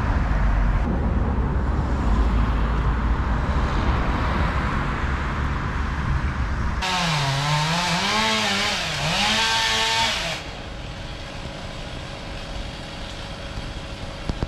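Low rumble of road traffic and engines, then a chainsaw revving up and down for about three and a half seconds as a tree is cut at its base. It drops back to a quieter steady engine hum.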